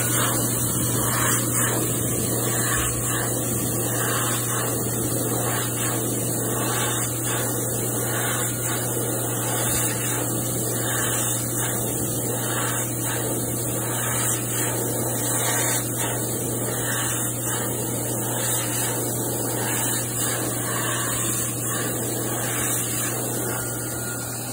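Dyson Airblade V hand dryer running, a steady rush of air with a low hum underneath and a strong high hiss. It eases off slightly near the end.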